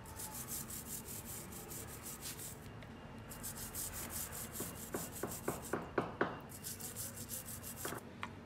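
Toothbrush scrubbing a rusty motorcycle chain, the bristles rasping over the links in brisk back-and-forth strokes about five a second, with two short pauses. A few sharper clicks come about two-thirds of the way through.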